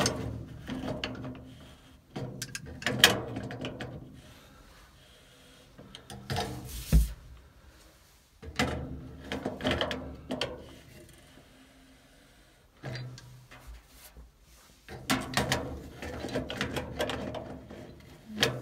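Metal clicking and scraping from an immersion spanner working on the octagonal head of an immersion heater as it is tightened into a copper hot-water cylinder. The sounds come in about six short bursts with quiet gaps between, and there is a low thump about seven seconds in.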